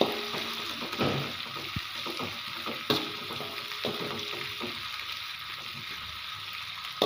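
Ground shallot, garlic and bird's-eye chili paste sizzling in hot oil in a metal wok while a metal spatula stirs and scrapes it, being sautéed until fragrant. Several sharp clacks of the spatula against the wok, the loudest at the start and about three seconds in.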